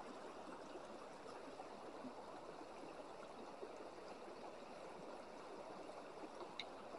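Faint, steady rush of a shallow river flowing over stones.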